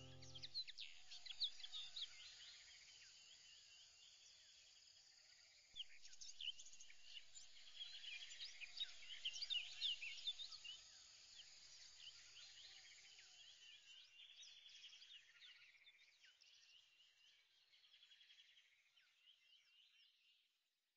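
Faint birdsong: many small birds chirping and trilling. It grows a little louder about six seconds in, then fades out near the end.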